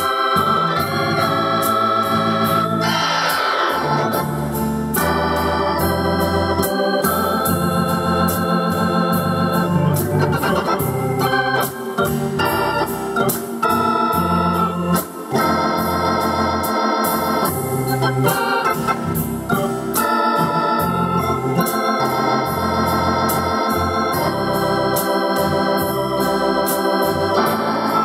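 Yamaha PSR-750 keyboard playing its Hammond B-3 organ voice: sustained organ chords changing every second or two over a steady drum beat. About three seconds in, a quick downward glissando runs across the keys.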